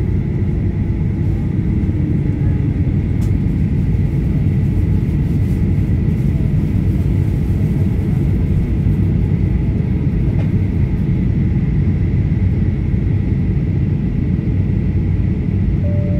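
Steady low cabin rumble of a Boeing 737-800 in flight: its CFM56-7B engines and the rushing airflow, with a thin steady whine above the rumble.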